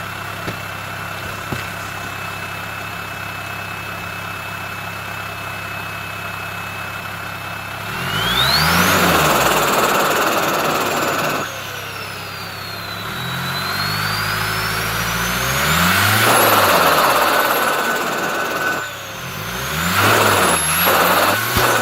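Turbocharged engine idling with a steady high turbo whistle, then revved three times: the whistle climbs and falls with the revs, and the revs drop off when the throttle is released. The uploader asks whether the sound on lift-off is turbo flutter.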